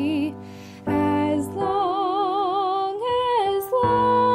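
Slow background music: a wavering melody of long held notes over sustained low notes, briefly dropping out about half a second in.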